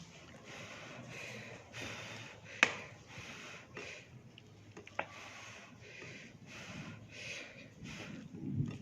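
Close-miked eating sounds from a person eating fried fish with rice: chewing with repeated breathing through the nose. Two sharp clicks, about two and a half and five seconds in.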